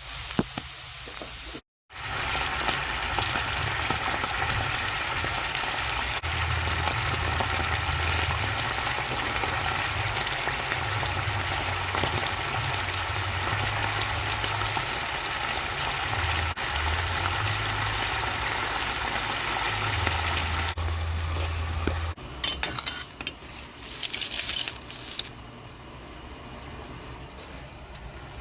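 Food frying in oil in a pan, a steady sizzle. Past the two-thirds mark the sizzle drops off and a few short clinks of a utensil follow.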